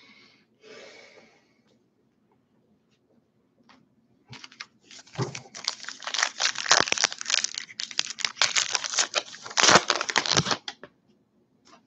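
Baseball card pack wrapper being torn open and crinkled by hand: a dense run of crackling and tearing that starts about four seconds in and stops shortly before the end, after a quiet start.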